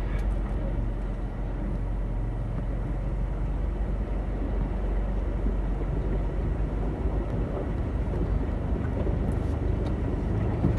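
A vehicle running with a steady low rumble as it drives through floodwater.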